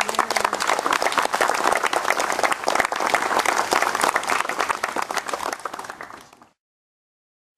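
A small crowd applauding, dense clapping that fades out about six seconds in, after which the sound drops away to complete silence.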